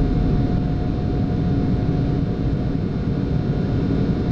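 Steady rumble of airflow and engines inside a Boeing 747-8F cockpit in the climb just after takeoff, with a faint steady tone running through it.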